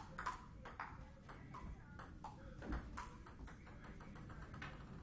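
Table tennis rally: the ball alternately bouncing on the table and struck by the rackets, a quick, fairly even run of sharp pings a few tenths of a second apart.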